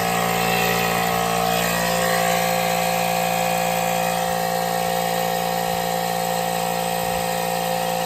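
Small electric pump running steadily with a constant hum, pumping the water out of a boiler expansion tank so it can be removed without a spill.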